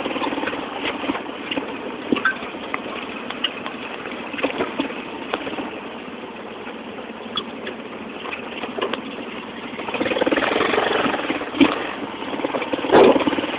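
Tricycle's motorcycle engine running under way, with rattles from the vehicle, heard from the back seat; it grows louder about ten seconds in.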